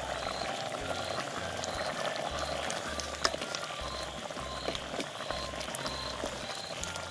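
Goat curry boiling in an aluminium pot: a steady bubbling hiss with scattered small pops and one sharper click about three seconds in.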